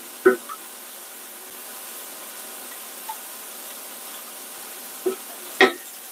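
Steady sizzling hiss of food cooking in a pan on the stovetop, with a few sharp knocks, the loudest about five and a half seconds in.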